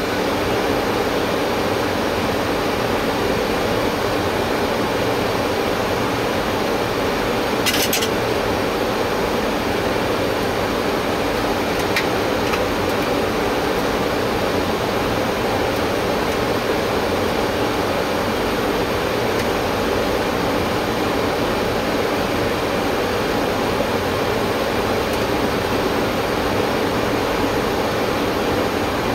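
Steady rushing flight-deck noise of a Boeing 737-800 on final approach, airflow and air-system noise, with a brief click about eight seconds in and a fainter one near twelve seconds.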